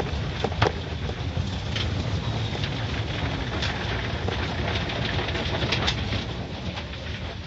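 Automatic car wash heard from inside the car: cloth wash strips rubbing and slapping across the windshield under water spray, a steady low rumble with scattered sharp slaps, one every second or two.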